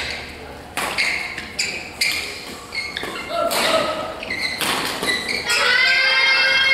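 Badminton hall sounds: a string of sharp racket-on-shuttlecock hits and footfalls from play on the courts, with voices echoing in the hall. Near the end a drawn-out high-pitched sound.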